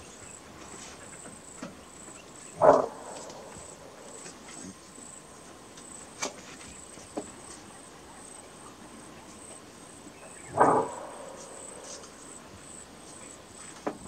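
Greater kudu giving its bark alarm call: two short, loud barks about eight seconds apart, over a steady high whine.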